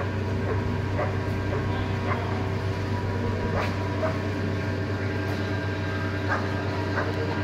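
Hydraulic oil press machine running with a steady low electric hum, with a few short sharp sounds on top now and then.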